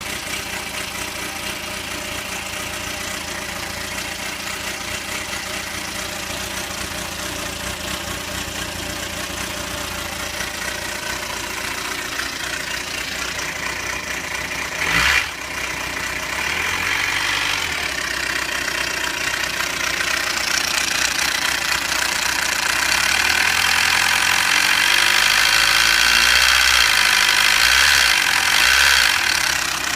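Kawasaki Xanthus 400 cc inline-four motorcycle engine running at idle with an abnormal mechanical noise. A sharp knock comes about halfway through, after which the sound grows louder and more high-pitched toward the end.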